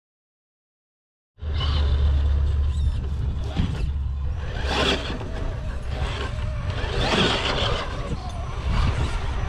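Silence, then from about a second and a half in, scale RC rock crawler trucks driving over rocks and leaf-covered dirt: tires scrabbling, with swishing bursts twice, over a steady low rumble.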